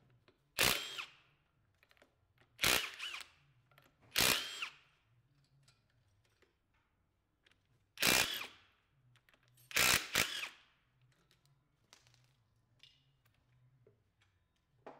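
Ridgid R86011B mid-torque cordless impact wrench hammering lug nuts loose in five short bursts of about half a second each: three in the first five seconds, two more about eight and ten seconds in. Light clicks of the socket and handling come between the bursts.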